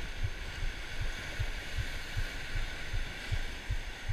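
Steady hiss of surf breaking on rocks, with low muffled thumps repeating about two and a half times a second as a hooked fish is played on a spinning rod.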